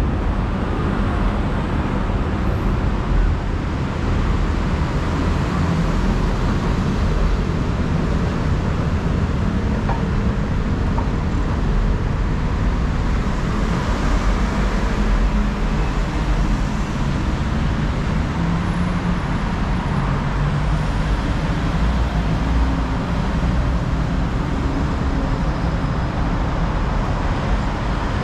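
Steady road traffic noise, a continuous low rumble with a hiss over it.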